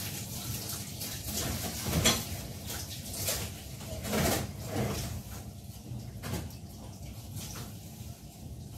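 Intermittent light knocks and clatter of things being handled at a kitchen counter and sink, about half a dozen separate knocks.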